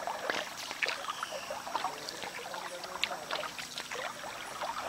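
Small irregular water splashes and trickling around a canoe, a paddle dipping and dripping.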